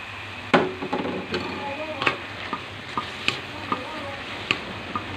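Wooden spatula stir-frying chicken and vegetables in a metal wok: a steady sizzle with about ten sharp, irregular knocks and scrapes of the spatula against the pan.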